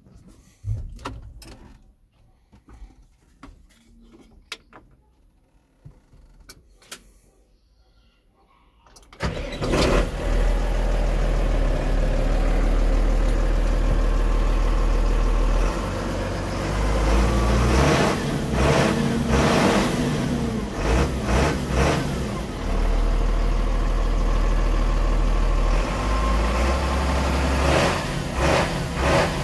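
Scattered clicks and knocks in a tractor cab, then about nine seconds in a Massey Ferguson tractor's diesel engine starts suddenly and runs, heard from inside the cab. Its revs rise and fall a few times.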